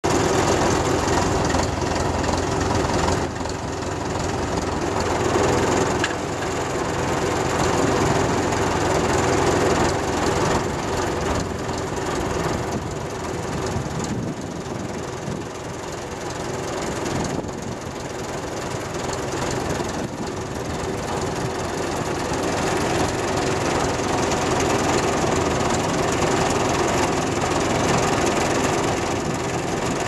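Fordson New Performance Super Major's four-cylinder diesel engine running steadily while the tractor ploughs, heard close up from the tractor.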